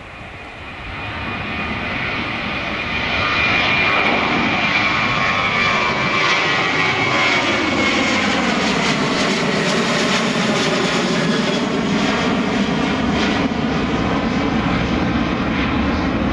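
Boeing 737 airliner's twin jet engines at takeoff thrust as it climbs out after takeoff. The noise swells over the first few seconds, then holds steady and loud. High whining tones slide slowly down in pitch as the jet passes overhead.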